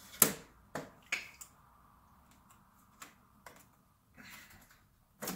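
A run of short, sharp clicks and snaps, about seven of them, the loudest about a quarter-second in and another just before the end, as suction cups are pulled to prise the magnet-held front glass off a 27-inch iMac.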